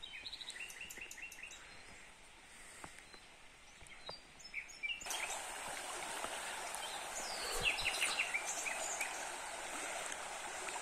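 Small birds chirping in short calls. About halfway through, the steady rush of a flowing stream's water starts suddenly and carries on.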